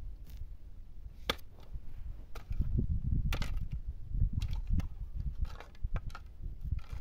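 Metal spade digging into stony soil: several sharp chops and scrapes at irregular intervals, over a steady low rumble.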